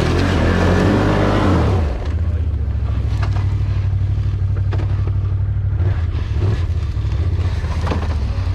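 ATV engine running under throttle while riding, louder and revving for about the first two seconds, then easing off to a steady low drone, with a few short knocks and rattles.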